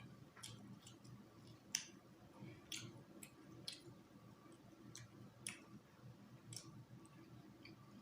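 Faint, scattered mouth clicks and smacks of close-miked eating, a dozen or so, the sharpest a little under two seconds in, over a low steady room hum.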